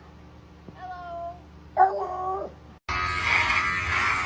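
An animal's pitched cries, two calls in quick succession, each a higher note followed by a louder, lower one. About three seconds in, a loud buzzing noise cuts in abruptly.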